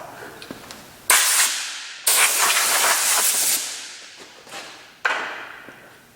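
Compressed air hissing from an air tool in three sudden blasts, the middle one the longest, each fading off.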